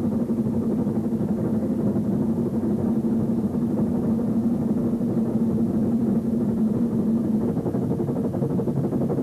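Brienz Rothorn Bahn steam rack train running uphill, heard from aboard: a steady mechanical drone with a busy clatter underneath.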